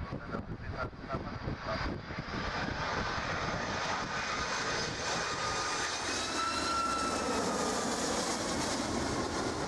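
Boeing 757 jet airliner on low final approach with its landing gear down, passing close: gusty wind buffets the microphone at first, then the jet engine noise builds from about two seconds in and holds, with a high engine whine that bends slowly in pitch.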